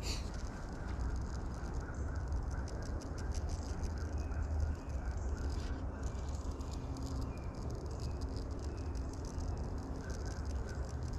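Spinning reel being cranked to retrieve line, giving a rapid run of ticks over a steady low rumble of wind on the microphone.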